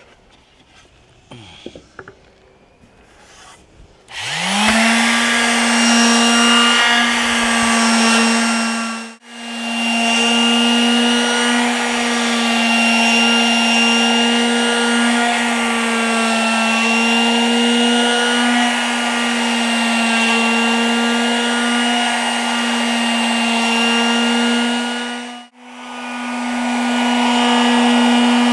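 Electric palm sander switched on about four seconds in, spinning up quickly to a steady hum as it sands a wooden cutting board. The sound drops out briefly twice.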